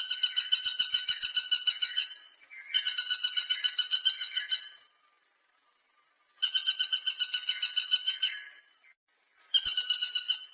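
Woodpecker call: a fast, high rattle of repeated notes in phrases of about two seconds. Three phrases come with short gaps between them, and a fourth starts near the end.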